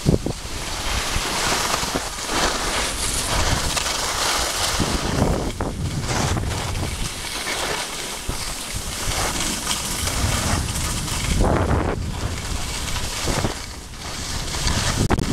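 Wind buffeting the microphone of a camera carried by a moving skier, with skis hissing and scraping over the snow, rising and falling in gusts.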